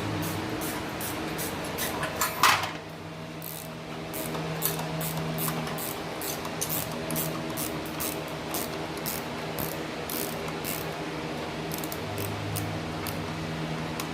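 Hand-tool work on motorcycle handlebar bolts: a run of short clicks, with one louder metal clank about two and a half seconds in, over a steady hum.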